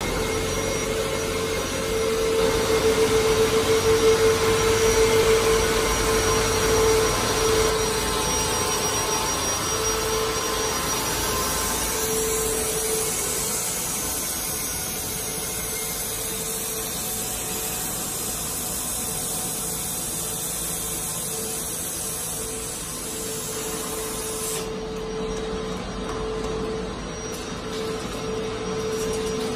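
Fiber laser cutting machine with a 2000 W Raycus source cutting 20 mm carbon steel plate: a steady rushing noise over a steady hum, loudest a few seconds in, with the upper hiss dropping away sharply near the end.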